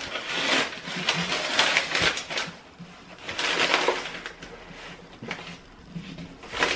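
Self-adhesive contact paper being put up: its backing sheet rustling and crinkling as it is peeled away and the sheet is smoothed on, in a few rough bursts of about a second each.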